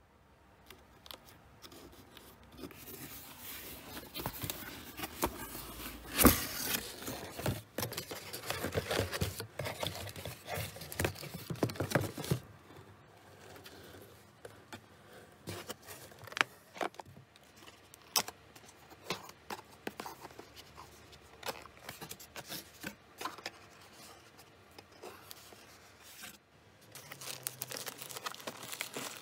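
Cardboard shipping box being opened and its contents handled by hand: cardboard scraping and rustling with scattered taps and clicks, busiest in the first half, sparser after, and picking up again near the end.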